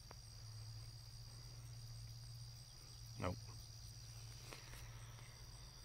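Steady high-pitched trilling of insects in grassland, with a low steady hum beneath and one brief, short sound about three seconds in.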